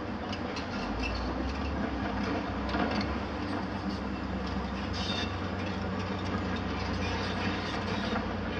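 Heavy diesel demolition machinery running steadily: a mobile crusher and tracked excavators, with a low engine rumble that deepens about a second in. Scattered clattering of broken concrete and rubble sounds over it.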